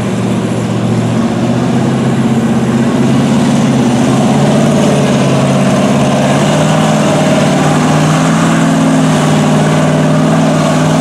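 Lifted Chevrolet Silverado mud truck's engine running at a low, steady speed as the truck crawls through deep mud on oversized tractor-tread tires, getting a little louder about three seconds in.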